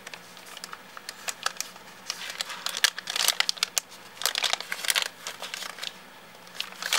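Red-and-white checkered burger-wrap paper crinkling and crackling as hands pull it open, in quick irregular crackles that are busiest in the middle.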